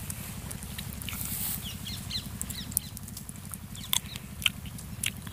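A low, steady, fast rhythmic thudding runs underneath sharp scattered clicks and rustling close by. A few short bird chirps come about two seconds in.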